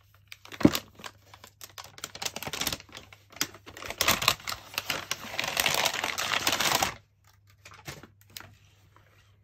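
Gift wrapping paper being peeled and torn open by hand: a sharp crack about half a second in, then crackling and rustling that grows dense about four seconds in and stops suddenly about seven seconds in, followed by a few faint taps as the cardboard box underneath is handled.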